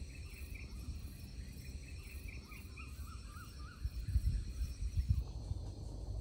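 Insects trilling steadily, with a bird giving a run of short rising-and-falling chirps over the first three seconds or so, over a low rumble.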